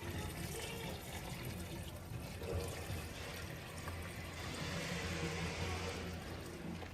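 Diesel engine of a JCB 3DX backhoe loader running steadily: a constant low hum under an even hiss.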